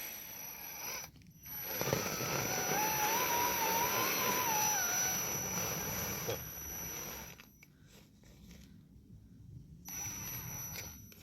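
An RC rock crawler's electric motor and gearbox whining as it drives, from about a second and a half in to about seven seconds in, the pitch wavering up and down with the throttle, then dropping away.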